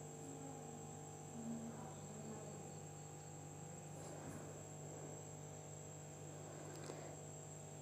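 Faint steady background hum with a thin, high-pitched whine over it: room tone, with no clear event.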